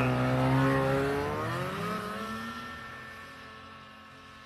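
1995 Polaris Indy Storm snowmobile's two-stroke engine revving up as the sled pulls away. Its pitch rises over the first two seconds and then holds while the sound fades with distance.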